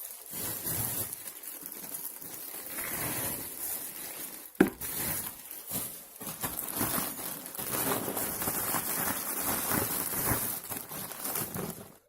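Plastic snack packaging crinkling and rustling as a bale of chiki snack packets is opened and handled, with one sharp snap about four and a half seconds in.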